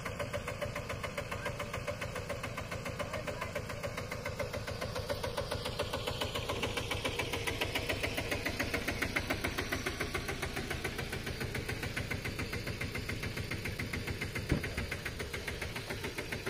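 Mini tractor engine running with a fast, even pulse, getting louder for a few seconds in the middle and then settling, with a single sharp knock near the end.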